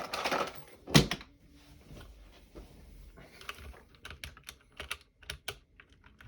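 A rustle, then one sharp knock about a second in, followed by scattered light clicks and taps from handling a mechanical keyboard and tools.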